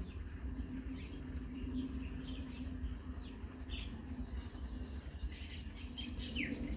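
Pork slices sizzling quietly in oil in a steel wok, with small crackles in the last couple of seconds, over a low steady rumble. Birds chirp in short falling calls a few times, most clearly near the middle and the end.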